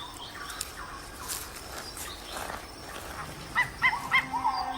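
Animal calls: a quick run of about five short, sharp chirps in the second half, over faint forest crackle.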